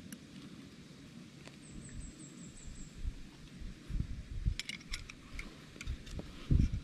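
Wind buffeting the microphone in low, irregular gusts. A quick run of about eight high chirps comes a little under two seconds in, and a few sharp clicks follow around four and a half seconds.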